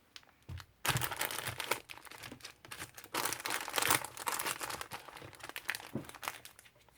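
Crinkling and rustling of paper and plastic packaging supplies being handled, loudest in two spells starting about a second in and about three seconds in.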